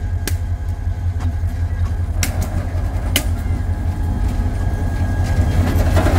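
Diesel locomotive approaching along the track, its engine a steady low rumble that grows louder as it draws near. Three sharp pops in the first few seconds as balloons on the rail burst under its wheels.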